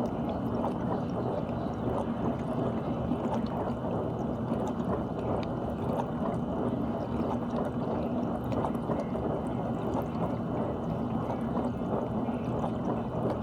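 GE dishwasher running its wash, water spraying and sloshing inside the tub over the steady hum of the wash pump motor.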